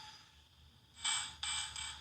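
Tiny electronic sound chip in a capsule toy, played through its small speaker: a tinny tune trails off at the start, then three short, bright, buzzy blips come in quick succession about a second in.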